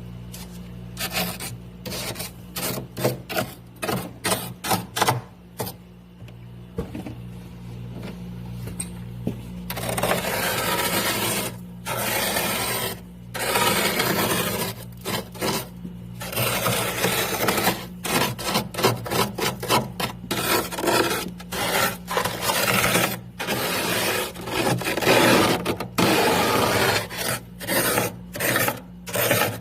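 Frost and ice being scraped from inside a freezer. For the first ten seconds or so it comes as many short strokes, several a second; after that the scrapes are longer and denser, with brief pauses between them. A steady low hum runs underneath.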